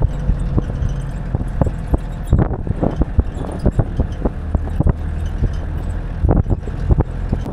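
4x4 vehicle engine running steadily as it drives over a rough gravel track, with frequent irregular knocks and rattles from the body jolting over the ruts.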